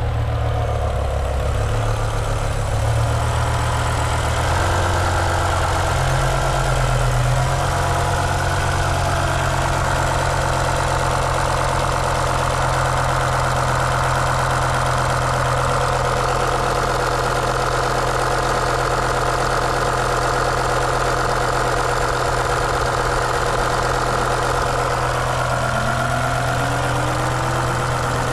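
BMW M5's V10 engine idling steadily. It has a misfire on cylinder 10, which the owner suspects is an ignition coil. A short rise in pitch comes near the end.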